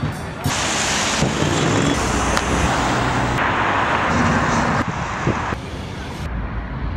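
City street ambience and traffic noise, a steady hiss of passing vehicles that changes abruptly every second or two as one short street recording gives way to the next.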